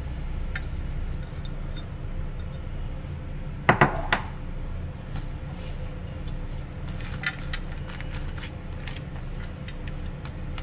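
Kitchenware clatter: two sharp clinks about four seconds in, then light scrapes and taps of a spatula against a metal baking pan while vegetables are stirred into ground beef, over a steady low hum.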